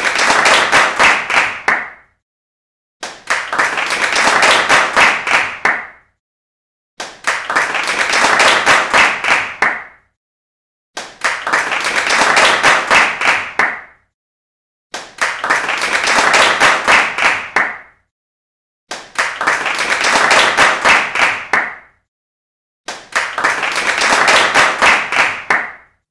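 Applause, many hands clapping, in regular bursts of about three seconds, each followed by about a second of silence, repeating seven times.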